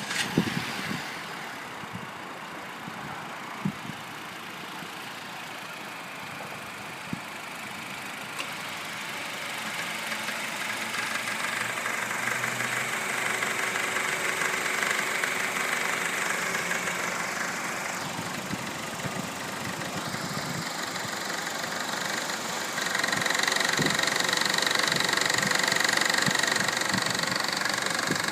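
2012 Honda Civic EX's 1.8-litre four-cylinder engine idling just after starting, with a knocking, rattling noise that persists after the dealer replaced the belt tensioner and oil pump, a fault bad enough that the dealer plans to replace the engine. It gets louder about 23 seconds in.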